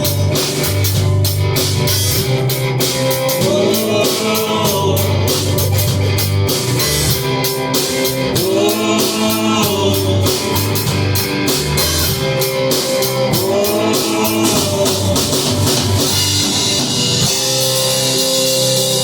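Rock band playing an instrumental passage on drum kit and guitar, with sliding, bending guitar notes over a busy beat. About three-quarters of the way through, the steady drumming drops out, leaving a ringing cymbal wash and held notes.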